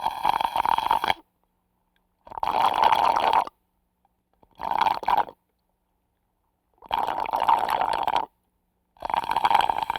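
Slurping through a drinking straw: five separate crackly slurps, each lasting about a second, with silent gaps of about a second between them.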